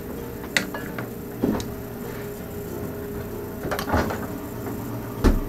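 Scattered knocks and clatters of things being handled and set down, four or so in all, the loudest a thump near the end, over a steady low hum.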